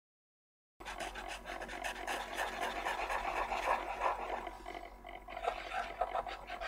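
White marker scratching and rubbing across paper in quick, uneven strokes. It starts abruptly about a second in, out of total silence.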